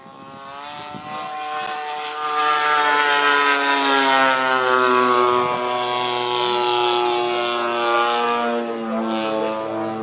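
Radio-controlled Extra 300's 55cc two-stroke gasoline engine and propeller droning in flight. It fades in over the first couple of seconds, then its pitch sinks slowly throughout.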